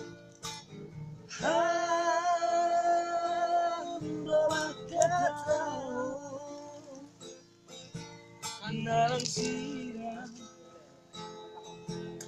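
Acoustic guitar strumming with a voice singing along: a long held note begins about a second in, followed by a shifting melody.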